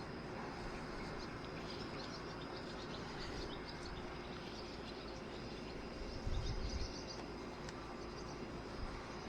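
Outdoor ambience: a steady high insect drone with scattered bird chirps over faint background noise, and a brief low rumble about six seconds in.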